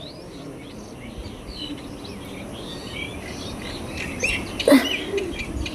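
Small birds chirping repeatedly in the background. About three-quarters of the way through there is one sudden, short, louder burst with a falling pitch.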